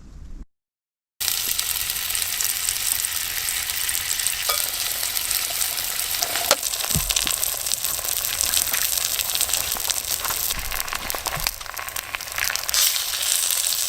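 Food frying in a hot pan: a steady sizzle with scattered small pops and crackles, starting about a second in.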